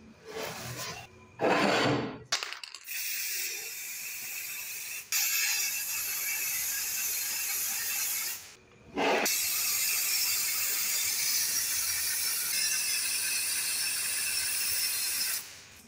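Aerosol spray-paint can spraying in two long, steady hisses of about five and six seconds with a short break between them, after two brief noisy sounds in the first couple of seconds.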